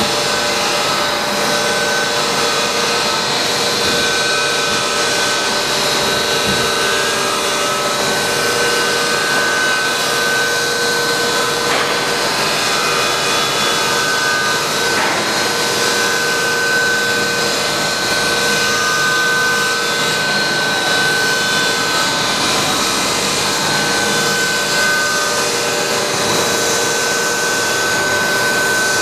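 A PVC sheet extrusion line running: a steady mechanical hum and hiss with several constant whining tones, one high whine standing out, holding level throughout.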